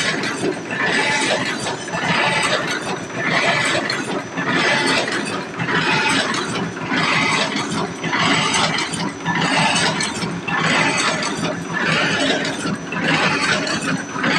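Automatic clothes-hanger making machine running, a rhythmic mechanical clatter with a bright clanking surge repeating about once every 1.2 seconds.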